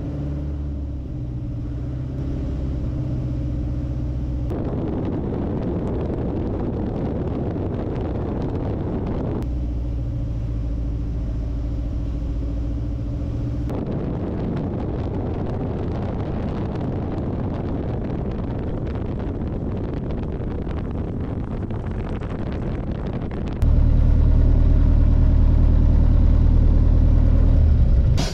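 Piper Super Cub's piston engine and propeller running steadily in flight, a constant low engine hum. At cuts between cameras the sound switches between the clean engine hum and a rushing airflow sound mixed in, and it grows louder with a stronger low hum for the last few seconds.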